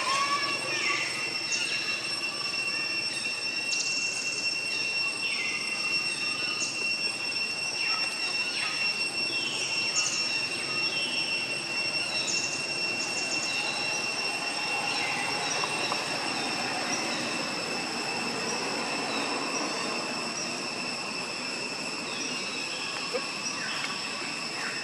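Cicadas droning in a steady high-pitched whine, with short falling chirps scattered irregularly over it.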